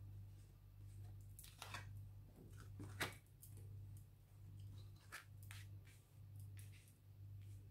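Oracle cards being shuffled and dealt onto a cloth-covered table: faint, scattered soft card flicks and slides, the sharpest about three seconds in, over a steady low hum.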